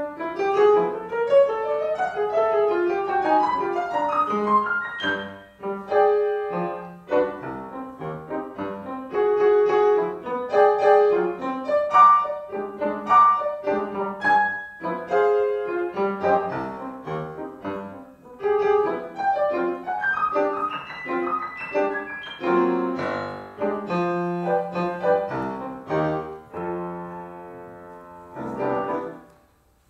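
Solo grand piano improvisation, with chords and running lines throughout. Near the end a long held chord rings and fades almost to nothing.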